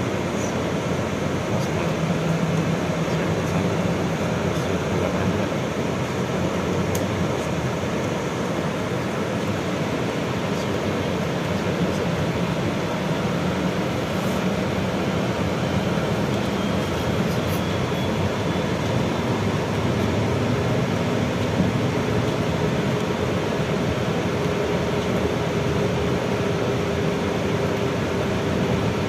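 Steady running noise of a BKM 32100D trolleybus on the move, heard inside the passenger cabin: an even rumble of tyres and road, with a faint steady whine coming in during the last third.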